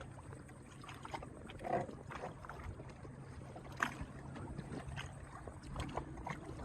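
Sea-Doo personal watercraft idling low, a faint steady hum, with scattered light knocks and splashes.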